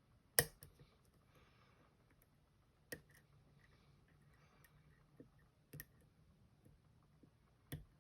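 A lock pick working the pin stacks of an M&C Matrix pin-tumbler lock: about five sharp, irregular clicks, the loudest about half a second in, with faint scraping between them. Such clicks are often the pick falling off a pin rather than a pin setting, as the picker himself notes.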